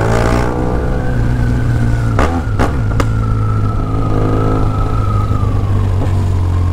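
BMW R1200GS boxer-twin engine running under way, its note rising in the first second and then holding fairly steady, over a heavy low rumble. A few sharp clicks sound about two to three seconds in.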